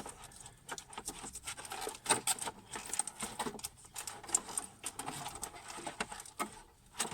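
Irregular light clicks, taps and rustles of a car's fuel pump and its seal being handled as the seal is worked off the old pump and onto the new one.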